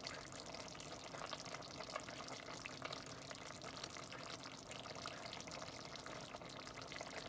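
Thick tomato-based beef stew simmering in an enamelled cast-iron pot: faint, steady bubbling with small pops.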